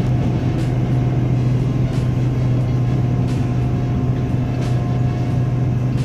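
Steady hum and rumble inside an SRT Red Line electric commuter train car, with a faint high tone above it and a few light clicks.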